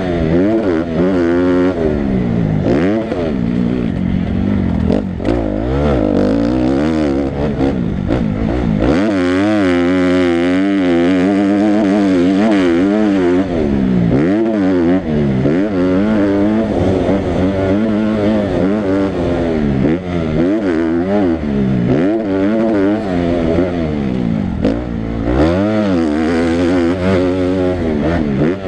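Dirt bike engine revving hard on a motocross track, its pitch climbing and dropping again and again as the throttle is opened and shut.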